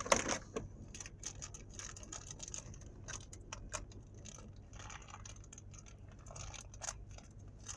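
Tiny plastic Mini Brands miniatures and their packaging being handled, giving a string of small light clicks and rattles over a low steady hum.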